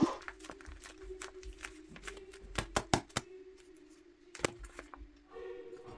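Light, irregular taps and clicks of hands handling paper pieces, over a faint steady hum.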